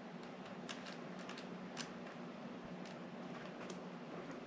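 Faint, scattered clicks of small metal and plastic parts being handled as an RC truck's wheel hex is worked onto its axle pin, over a steady low hum.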